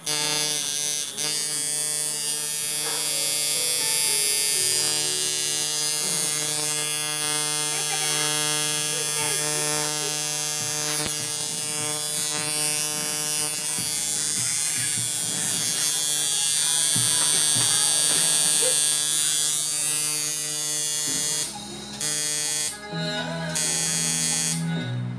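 Sunskin coil tattoo machine buzzing steadily, its pitch stepping slightly a few times. Near the end it cuts out and restarts twice.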